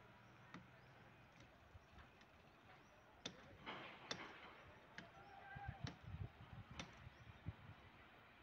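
Near silence: faint outdoor ambience broken by scattered light clicks and knocks, with a faint low rumble in the second half.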